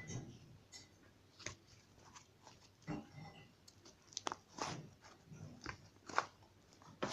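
Slime being squeezed and poked by hand, giving irregular short sticky crackles and pops, some with a soft squelch.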